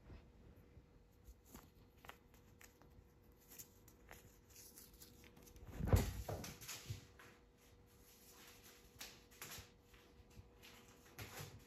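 Soft rustling and small taps on blankets, then a thump about six seconds in as a cat jumps down off the couch, followed by a few lighter knocks.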